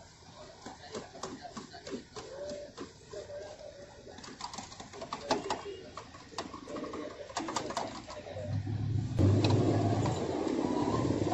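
Light clicks and clatter of metal tongs against wire frying baskets at a street-cart deep fryer. About eight seconds in, a louder low hum with a rough background noise comes in.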